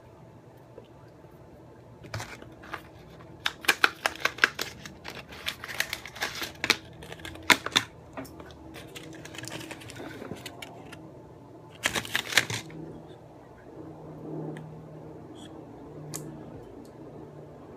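Clear plastic blister pack of replacement atomizer coil heads crackling and clicking as it is handled and opened: a run of sharp clicks for several seconds, then a shorter burst later.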